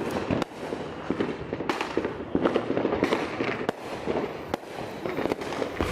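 Fireworks and firecrackers going off: a continuous crackle of pops, with several louder bangs a second or so apart.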